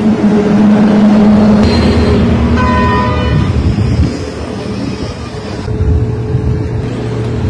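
Street traffic noise with engines running steadily; a vehicle horn sounds briefly about three seconds in.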